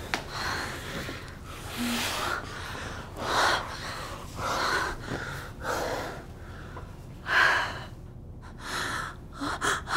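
A woman's heavy breathing in short audible gasps, about one a second, the breathing of sexual arousal.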